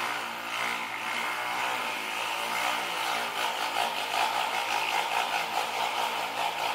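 Dirt-bike engine of a snowbike running at a fairly steady pitch, a little louder and more uneven from about three seconds in.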